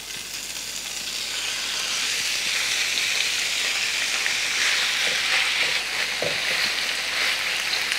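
Diced raw chicken sizzling as it lands in hot oil and garlic in a nonstick frying pan; the sizzle builds over the first two seconds and then holds steady while the chicken is stirred with a silicone spatula.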